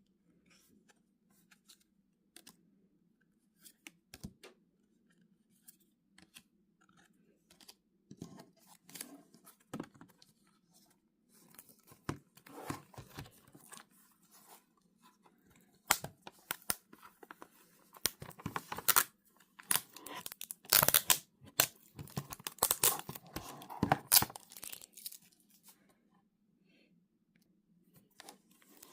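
Packaging being torn open and handled by hand: scattered light taps and rustles at first, then a run of louder tearing and crinkling from about halfway through, easing off near the end, over a faint steady hum.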